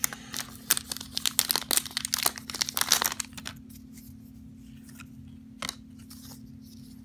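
Plastic trading-card pack wrapper crinkling as it is torn open and pulled off the cards, the crackling stopping about three seconds in. One sharp click follows near the end.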